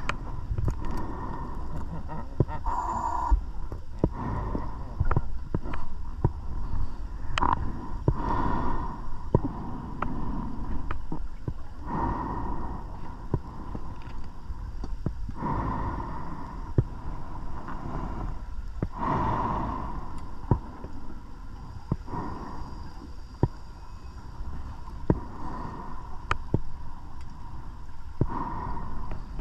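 Underwater scuba diver's breathing: exhaled bubbles gurgle out in a short rush about every three to four seconds, over a steady low rumble and scattered sharp clicks.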